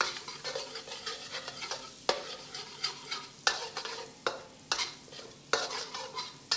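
Metal spatula scraping and clinking against a stainless steel wok, stirring minced garlic and butter frying in oil, with sharp strokes about once a second over a light sizzle as the butter melts.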